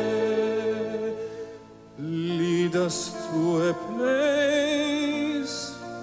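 Slow ballad music. A long held note fades out about a second in, and a new melody with vibrato starts about two seconds in.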